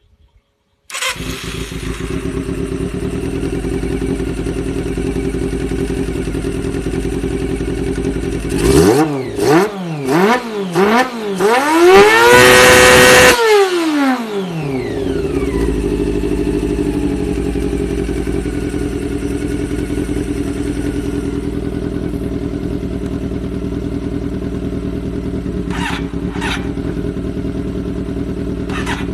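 Honda CBR1000RR inline-four engine in a Honda Supra X motorcycle starting about a second in and idling. It then gives four quick rev blips, holds one high rev briefly as the loudest moment, and falls back to a steady idle.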